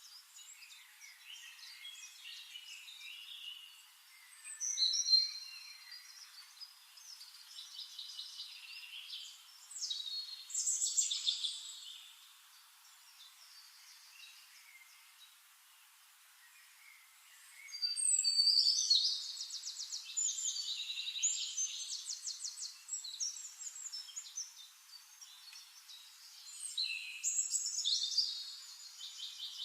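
Birds singing in bursts of high chirps and rapid trills. The loudest phrases come about five seconds in, around eleven seconds, for several seconds from about eighteen seconds in, and again near the end.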